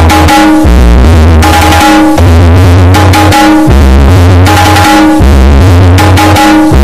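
Loud electronic music with synthesizer, a heavy bass line and a drum beat.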